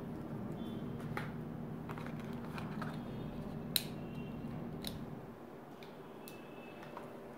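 Light clicks and rustles of hands handling phone-box accessories, a charger and a coiled, plastic-wrapped USB cable, in a cardboard tray, with one sharper click a little under four seconds in. A steady low hum underneath drops away about five seconds in.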